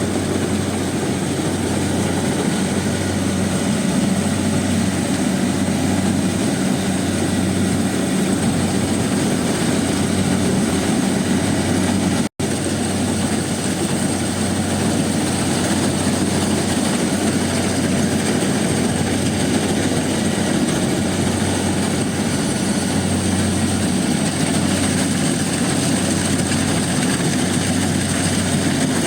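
Rice combine harvester running steadily at work: its engine and threshing machinery make a continuous low mechanical noise, with a thin steady high whine over it. The sound cuts out for an instant about twelve seconds in.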